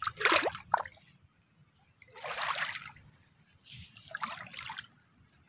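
Shallow muddy water splashing and trickling in three short bursts about two seconds apart.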